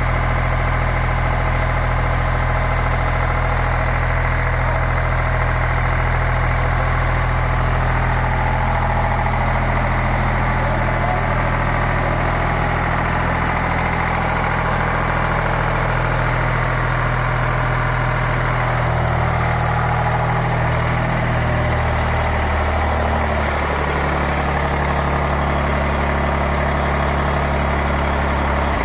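Eicher three-cylinder diesel engine running steadily while driving a three-phase generator under a water-bucket load test. Its low engine note shifts a little about two-thirds of the way through.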